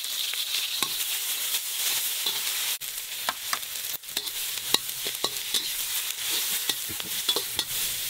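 Sliced onion, scallion and chilli sizzling in hot oil in a wok while a metal spatula stirs them, with scraping and frequent light clicks against the wok: the aromatics being fried until fragrant.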